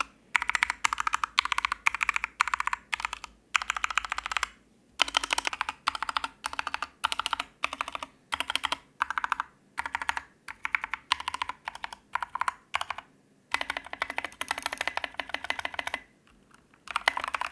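Typing on a PressPlay 60% mechanical keyboard fitted with tall SA-profile keycaps: rapid runs of keystroke clacks in bursts, with brief pauses. The sound is a little hollow, which is put down to the taller keycaps leaving more space inside the keys.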